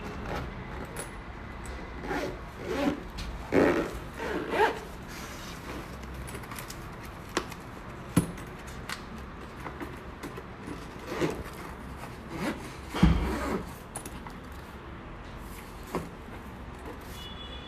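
Hand tools being handled, likely the kit's plastic trim removal tools: an irregular series of short scrapes and rubs with a few sharp clicks, over a steady low hum.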